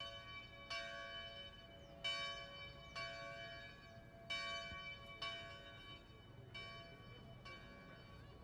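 Church bells ringing, struck about once a second at an uneven pace, each strike ringing on into the next.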